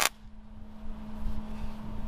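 A welding arc's crackle cuts off right at the start. What remains is a steady low hum and a low rumble while the welding pauses between welds.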